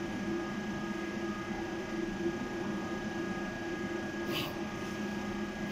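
Steady hum of pump-room machinery, with a thin steady whine over it. A brief hiss-like noise comes about four seconds in.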